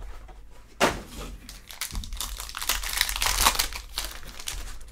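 Foil trading-card pack crinkling and tearing as it is opened by hand, with a single sharp tap a little under a second in.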